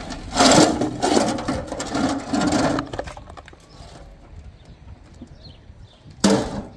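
Metal wheelbarrow tipped over, dumping broken concrete chunks and stones onto the ground: a clattering crash lasting about two and a half seconds. Near the end a single loud clank as the empty wheelbarrow is set back down.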